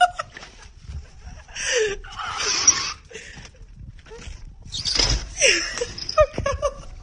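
A person's alarmed, breathy exclamations and laughter, with short falling cries, then two sharp knocks about six seconds in.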